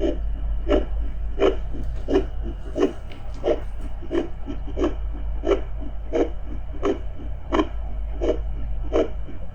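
A woman's amplified heartbeat, a steady pulse of about 85 beats a minute, over a constant deep underwater rumble.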